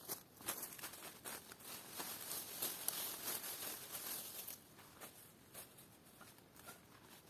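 Rustling and crackling with many short sharp clicks, louder for the first four and a half seconds, then a quieter rustle.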